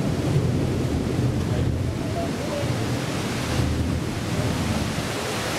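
Thunderstorm wind gusting against the microphone over a steady hiss of heavy rain and surf.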